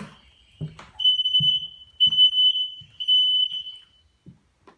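Combination smoke and carbon monoxide detector sounding its alarm on test: a loud, high-pitched beep about once a second, three in a row, then a pause. This shows the detector works.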